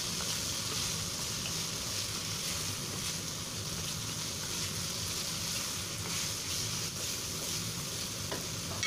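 Pork strips and dried tofu strips sizzling steadily in a hot nonstick wok while being stirred and turned with a wooden spatula.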